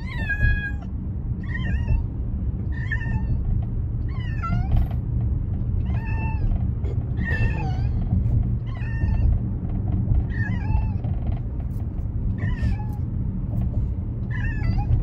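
Domestic cat meowing in distress from inside a plastic pet carrier: about ten calls, roughly one every one and a half seconds, each falling in pitch. It is upset at being shut in the carrier. A steady low car rumble runs underneath.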